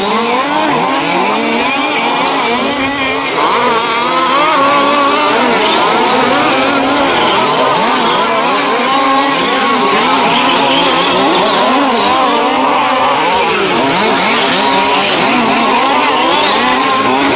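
Several 1:5-scale petrol RC cars racing together. Their small two-stroke engines are revving up and down, many overlapping pitches rising and falling at once.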